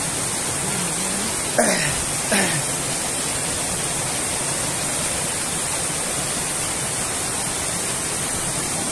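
Small waterfall rushing steadily into a stream pool. Two short vocal sounds, a voice, break in at about a second and a half and two and a half seconds.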